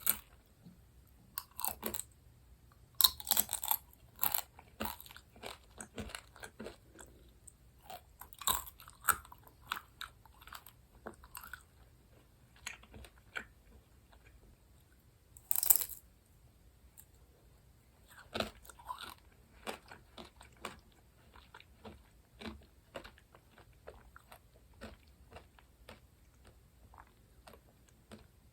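Close-miked eating sounds of someone biting and chewing candy or ice cream: a steady run of small crisp clicks, broken by a few louder bites.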